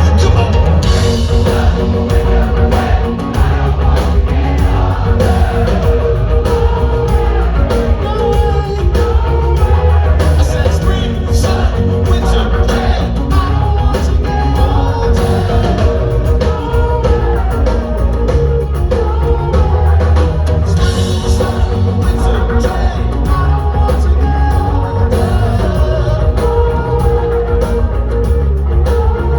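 Rock band playing live with singing, over heavy bass and steady drums, loud and without a break.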